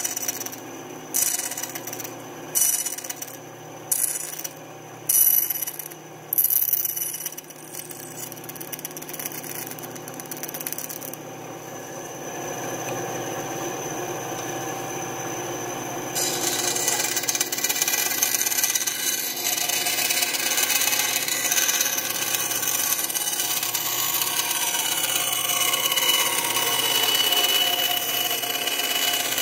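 Small bench-top bandsaw running and cutting thin lite-plywood wing ribs. Over the first several seconds there are short sharp cutting bursts about once a second. The saw then runs more steadily, and from about halfway on a louder continuous cut goes into the next rib.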